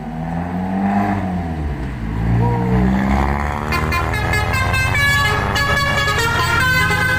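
Basuri telolet horn on an intercity bus playing a tune of stepped multi-note horn blasts, starting about four seconds in. Before it, a low engine sound rises and falls in pitch.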